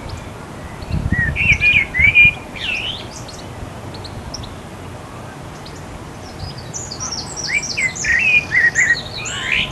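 A songbird singing two bursts of varied, quick phrases: one about a second in, the other starting past the middle and running on to the end.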